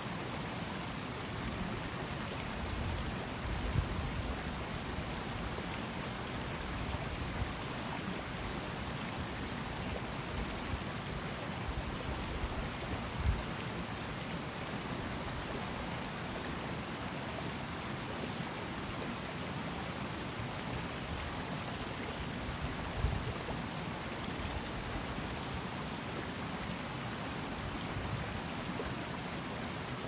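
Highland river flowing: a steady rush of running water. A few brief low thumps stand out about 4, 13 and 23 seconds in.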